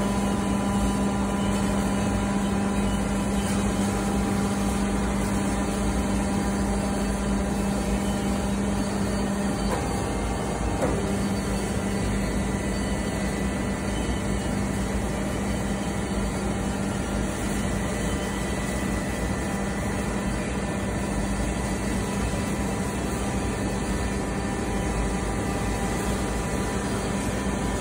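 Hydraulic power pack of a 60-ton baling press, its electric motor and pump running with a steady hum while the ram presses down and then lifts. The hum breaks briefly about ten seconds in, then carries on.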